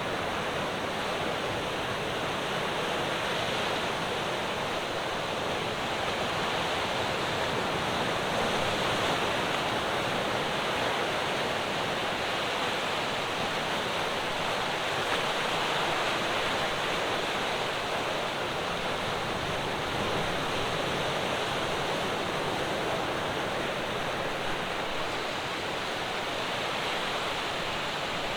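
Ocean waves breaking on a rocky shore, a steady wash of surf that swells slowly and eases.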